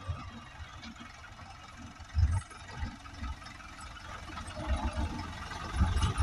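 New Holland tractor's diesel engine running as its front plough blade pushes through deep snow, with short low thumps about two seconds in and again near the end.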